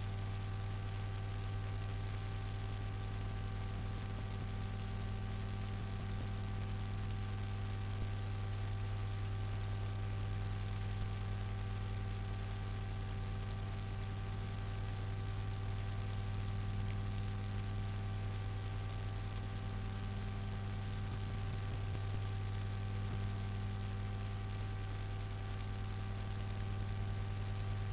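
Steady electrical mains hum from the audio line, with several fixed tones over a constant hiss and no change in level.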